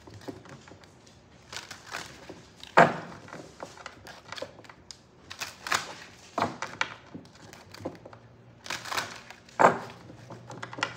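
Tarot cards being handled on a table: papery rustling and scraping, with three sharp taps about 3, 6.5 and 9.5 seconds in as cards are snapped or set down.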